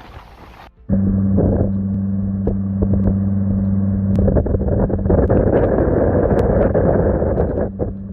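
Hurricane wind buffeting the microphone with a heavy, rumbling roar that grows stronger partway through, over a steady low hum. Under a second in it cuts abruptly from a lighter, hissier stretch of wind.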